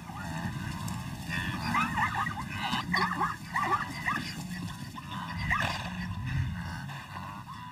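Short, high yelping animal calls, several in quick runs with a last one a little later, over a steady low background.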